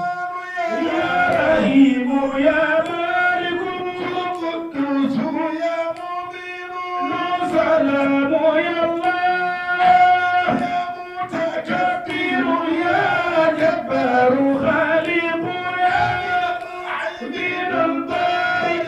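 A man chanting a devotional song into a handheld microphone, in long held notes with an ornamented, winding melody and short breaths between phrases.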